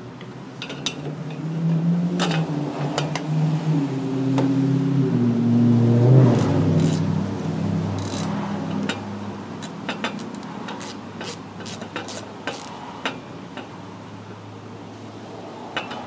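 A motor vehicle passing by, its engine note building over a few seconds, stepping in pitch and then fading slowly. Light sharp clicks from a hand screwdriver turning out the fuel pump's mounting screws run through it.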